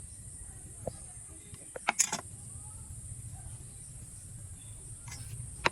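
A few sharp clicks and knocks over a low steady hum: one just under a second in, a quick cluster about two seconds in, and another near the end.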